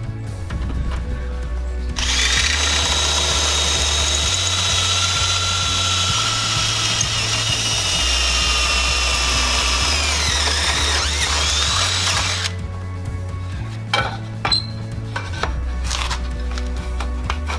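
Cordless drill running into the metal frame of a van's rear carrier for about ten seconds, its whine dipping in pitch under load near the end before it stops suddenly. A few sharp metallic clicks and knocks follow as parts of the carrier are handled.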